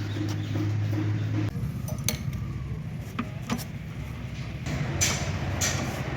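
Wrench and bolts clinking against metal, a few separate sharp clinks and taps, while steering-mounting bolts are being fitted. A steady low hum underneath stops about a second and a half in.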